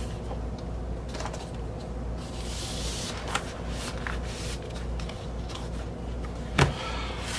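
Cardboard and paper sleeves rustling and sliding as a vinyl record is put back into its album jacket, with light taps and a sharper knock near the end, over a steady low hum.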